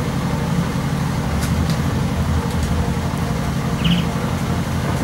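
Steady low background rumble with a few faint clicks, and one short high chirp about four seconds in.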